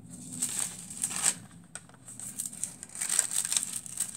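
Crinkling and rustling of a thin heat-transfer foil sheet and paper as they are handled and peeled off cardstock. There is a short stretch near the start, then steadier crinkling from about halfway through.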